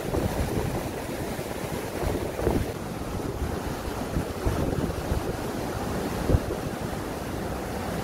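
Floodwater rushing in a flash flood, a steady heavy rushing noise, with wind buffeting the microphone and a brief knock about six seconds in.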